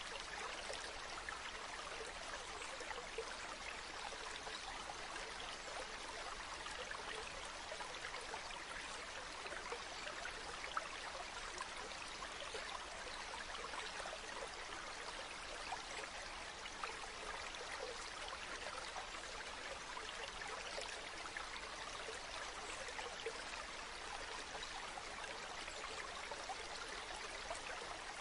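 Shallow stream water running steadily over pebbles, a constant babble with many small splashes.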